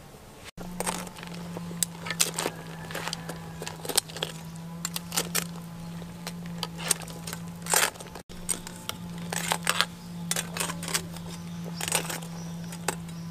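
Irregular clicks, taps and knocks of kitchen utensils being handled, over a steady low hum.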